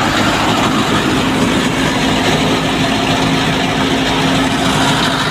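Wheat thresher running at working speed, driven off the PTO shaft of a 1978 Fiat 480 diesel tractor: a loud, steady mechanical din of the threshing drum and the tractor's engine together, with a steady hum joining about a second in.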